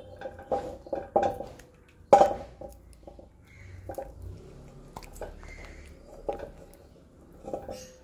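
Dishes knocking and clinking against each other, each knock ringing briefly, about eight times at an uneven pace, with the loudest knock about two seconds in.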